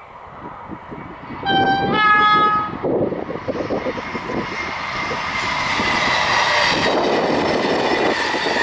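Double-deck TGV high-speed train sounding its two-tone horn about a second and a half in, a short lower note then a longer higher one. Then the rushing noise of the train at speed grows louder as it approaches, with a faint steady whine over it.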